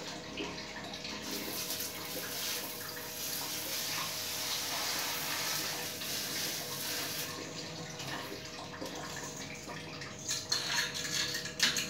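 Water spraying from a handheld health-faucet sprayer onto a plastic split-AC air filter and splashing into a ceramic sink, a steady hiss as the spray pressure rinses the trapped dust out. Near the end a few knocks as the filter is handled in the basin.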